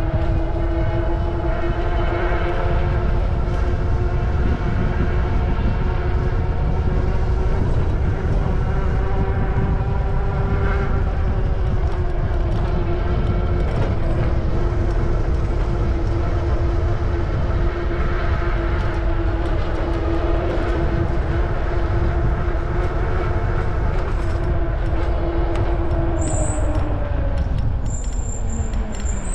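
EUY F6 e-bike's electric motor whining steadily under way, over heavy wind rumble on the microphone. Near the end the whine falls in pitch as the bike slows, with a brief high squeal.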